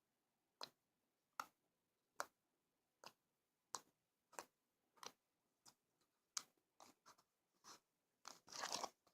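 Homemade glue-and-laundry-detergent slime being squeezed and kneaded by hand, giving short wet pops and clicks about once or twice a second, with a denser crackling run near the end.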